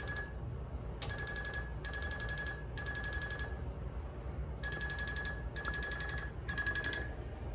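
Rolling Wrench electric fuel pump chirping in short repeated bursts, each under a second long with brief gaps between them and one longer pause in the middle, each burst a high trill of rapid clicks. This is the pump cycling as it primes fuel through the line to the carburetor, with the key on and the engine not yet started.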